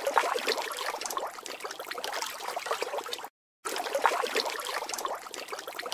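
Trickling, crackling liquid: a dense patter of small crackles, in two stretches broken by a brief cut to silence a little over three seconds in.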